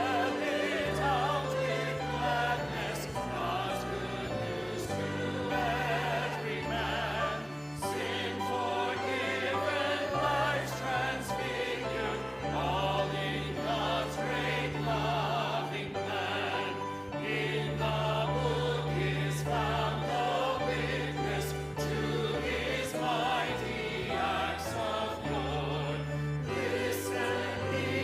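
Choir singing a hymn with vibrato over an accompaniment of sustained bass notes that change every second or two.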